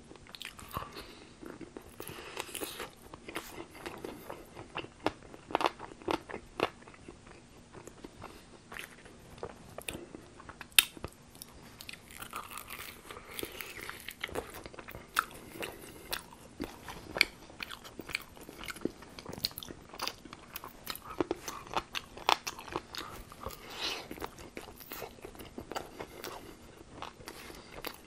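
Close-miked crunching and chewing of tempura-battered fried chicken wings: irregular sharp crunches of the crisp batter between stretches of chewing, with one especially loud crunch about eleven seconds in.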